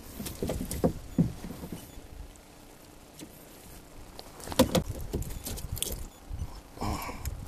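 Irregular knocks, clicks and light rattles of gear being handled in a kayak, in two clusters: one at the start and a louder one about halfway through.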